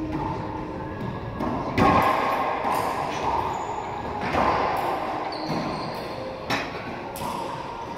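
Racquetball rally in an enclosed court: sharp, echoing cracks of the ball off racquets, walls and the hardwood floor every second or two, the loudest about two seconds in.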